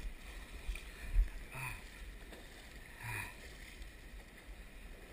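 Shallow river water sloshing and splashing around wading legs, over a low wind rumble on the microphone. There is a thump about a second in, and two brief grunt-like vocal sounds about one and a half and three seconds in.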